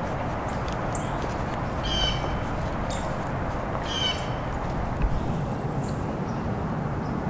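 A bird calling, a short call given twice about two seconds apart, over a steady background hiss.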